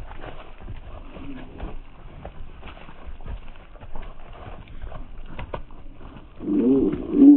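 Zwartbles sheep hooves clopping and shuffling on a path and grass right by the microphone, with many small knocks. Near the end a sheep bleats loudly, a wavering call that is the loudest sound.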